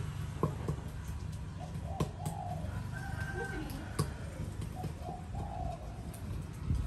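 Wooden pestle knocking in a clay mortar a few times, a second or two apart, as salad is pounded, with a dove cooing in the background.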